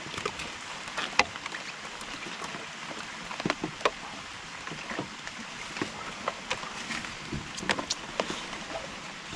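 Rain falling: a steady hiss with irregular sharp taps of drops landing close by, on the wooden boat.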